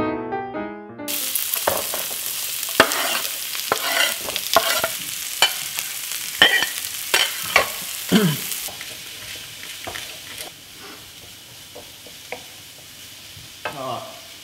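Chopped red onion and garlic sizzling in a hot wok, with a wooden spoon stirring and knocking irregularly against the pan. The sizzle is loud at first and drops to a quieter hiss a little over halfway through. Piano music ends about a second in.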